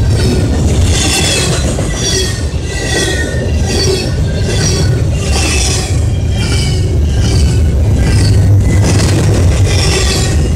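Double-stack intermodal container train rolling past at close range: a loud, steady rumble of steel wheels on rail, with high metallic wheel squeals coming again and again, roughly every second.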